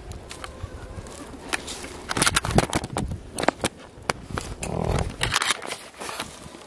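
Close crackling and scraping as twine ties on electric fence netting are handled, a quick run of clicks and rustles that is loudest in the middle.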